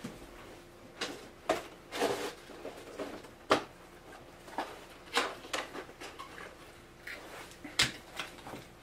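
Scattered clicks, knocks and rustles of small objects being handled while someone fetches a battery, irregular and unrhythmic; the sharpest click comes about three and a half seconds in.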